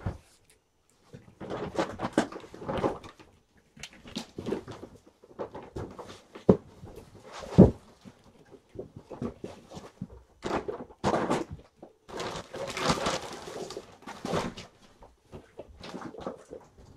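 Irregular rustling and handling noises with scattered knocks and clicks, the loudest a single sharp knock about halfway through.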